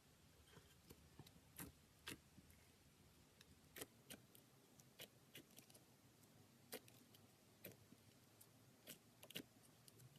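Faint, irregular sticky clicks and pops from slime being pressed and worked by hand, roughly one or two a second.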